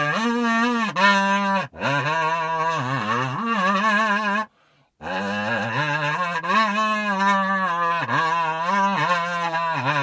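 Kazoo playing a slow improvised melody: a buzzy hummed tone with wavering vibrato and pitch slides, in phrases broken by short breaths and a pause of about half a second midway.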